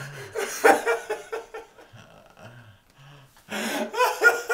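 People breathing hard and gasping, with short, broken voice sounds. The voice sounds are loudest about half a second in and again near the end.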